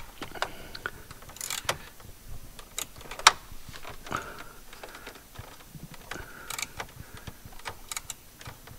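Hands and a clutch adjuster tool working through a car's shifter opening: scattered light clicks, taps and scrapes, with one sharper click about three seconds in. The adjuster is being turned to add clutch pressure.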